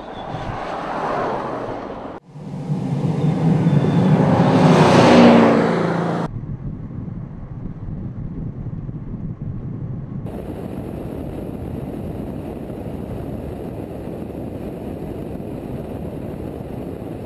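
Mercedes S63 AMG Coupe's twin-turbo V8 in two drive-bys cut together: a first pass swelling about a second in, then a louder one revving up and passing close around five seconds in, each cut off suddenly. After that comes a steady rush of tyre and road noise from the moving car, turning hissier about ten seconds in.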